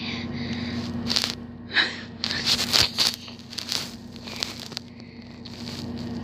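Irregular rustling and scratching noises, busiest through the middle seconds, over a steady low hum.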